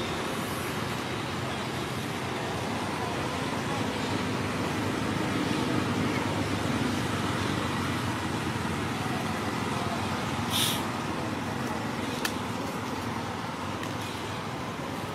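Steady background traffic noise, with a short hiss about ten seconds in and a faint click about two seconds later.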